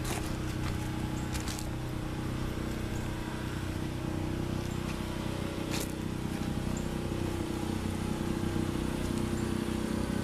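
A steady low mechanical hum, like a small engine or motor running, with a few sharp clicks in the first two seconds and another about six seconds in.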